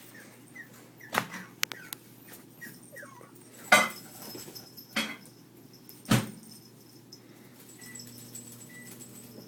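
Five sharp knocks and clatters of cat toys being played with, the loudest about four and six seconds in, with a few faint short squeaks in the first few seconds.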